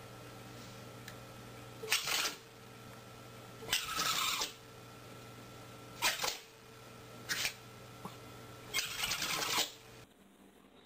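Small dog sniffing and snuffling at a carpet in five short bouts, the last a quick run of sniffs, over a steady low hum.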